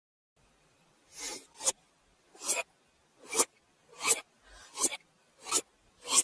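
A run of seven stifled sneezes in quick succession, about one every 0.7 s. Each is a short breathy build-up ending in a sharp, hissing burst.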